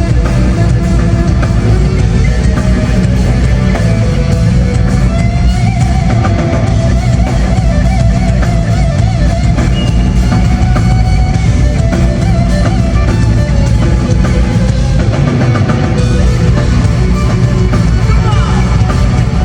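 A live band playing loud amplified rock-style music with drums, guitar and heavy bass, at concert volume as heard from the arena crowd.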